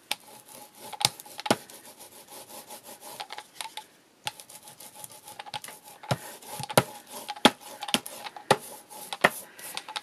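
Paint brayer rolling back and forth over wet acrylic paint on craft card: a rubbing sound with repeated sharp clicks as the roller strokes, pausing briefly about four seconds in.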